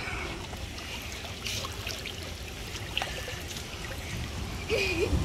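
Swimming pool water trickling and lapping, with small splashy bursts. A short wavering tone is heard near the end.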